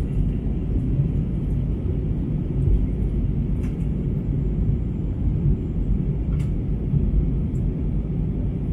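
Jet airliner cabin noise during descent: a steady low rumble of engines and airflow heard from inside the cabin, with a couple of faint ticks.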